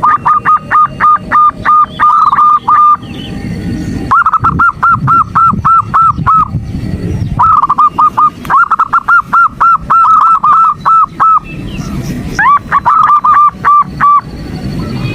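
Female zebra dove (perkutut) giving her calling series: rapid, evenly spaced short high notes, about six a second, in four runs of two to four seconds broken by short pauses. This is the call used to provoke male zebra doves into calling.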